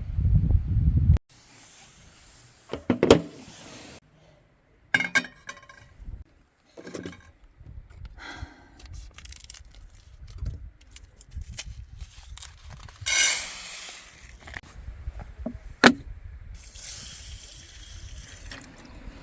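Wind rumbling on the microphone for about the first second. Then a string of short camp-cooking sounds: water pouring and splashing, with sharp clinks, knocks and scrapes of cookware and utensils, the loudest a rush of water about two thirds of the way in.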